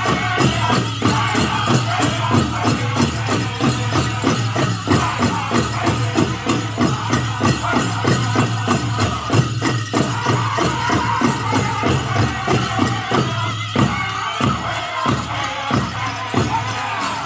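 Powwow drum group singing a chicken dance song over a fast, steady drumbeat, about three to four beats a second, with jingling from the dancers' regalia bells; the beat briefly turns sparser in the last quarter.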